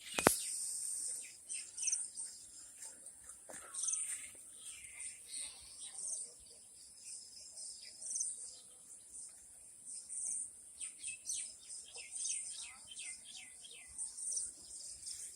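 Small birds chirping repeatedly over a steady high-pitched insect drone, with a single sharp click just after the start.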